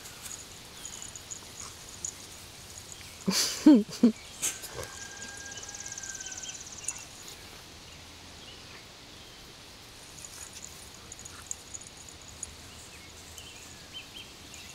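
Dogs play-wrestling; about three seconds in, one of them gives a short burst of play vocalising, a growl running into a bark, which is the loudest sound. After it comes a faint steady tone lasting a couple of seconds, and faint high ticking is heard here and there.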